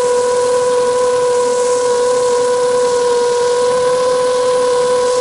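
The ZMR250 quadcopter's four brushless motors and propellers whine at a steady pitch over a hiss of rushing air, heard from the camera mounted on the frame in flight.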